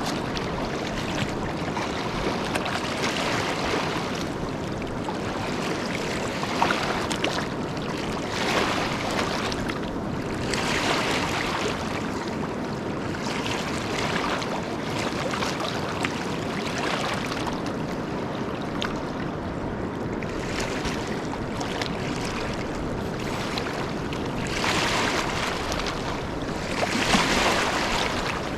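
River water running and lapping, a steady rush with soft surges every couple of seconds and a louder swell near the end.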